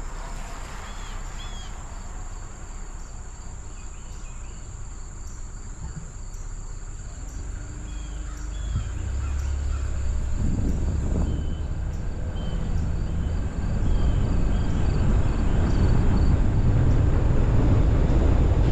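Wind and road rumble picked up by a car-roof-mounted GoPro, growing louder about halfway through as the car gets moving and again a little later. Over it run a steady high insect buzz with quick even ticking and scattered short chirps.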